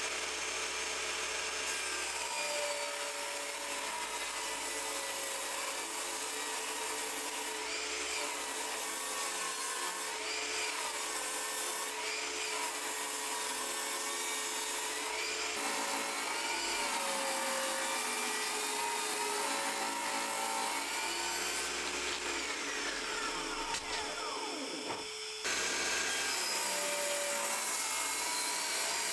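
Table saw ripping softwood 3x2 timber lengthwise to square off its rounded edges: the blade runs steadily under load, its pitch wavering as the wood is fed through. The sound changes abruptly twice, at about 15 and 25 seconds in.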